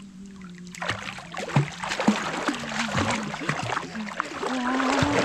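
Water splashing in a shallow stream, starting about a second in and going on in irregular bursts.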